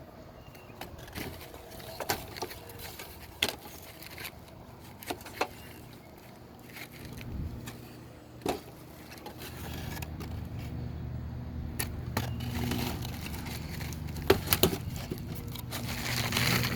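Scattered sharp knocks and taps from roof repair work, irregularly spaced, joined about ten seconds in by a steady low hum.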